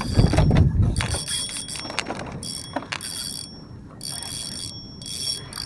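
Spinning fishing reel being cranked in short spurts, about eight turns' worth, its gears giving a ringing whirr as line is wound in. Handling rumble in the first second.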